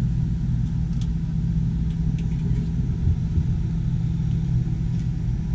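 A steady low mechanical hum inside an enclosed Ferris wheel gondola, with a few faint clicks.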